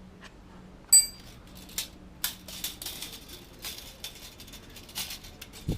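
Metal spanner clinking and scraping on a motorcycle's rear-wheel chain-adjuster bolt: one sharp ringing clink about a second in, then irregular clicks while the adjuster is turned to tighten the slack chain, and a dull thump near the end.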